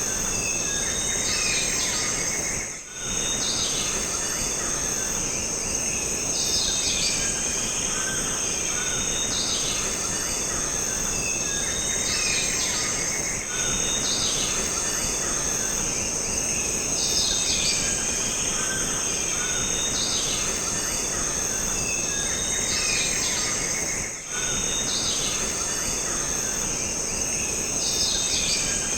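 Jungle ambience: a steady high-pitched insect drone with repeated bird calls and chirps over a constant background hiss.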